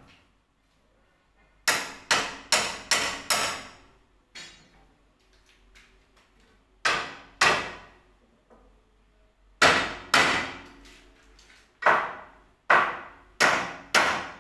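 Hammer blows struck in quick runs, each with a short ringing decay: five rapid strikes, two pairs, then four more near the end.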